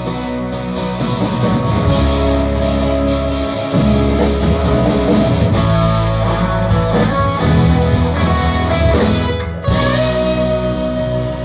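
Live rock band playing an instrumental outro without vocals, electric guitars leading over bass and drums. The band briefly stops near the end and comes back in.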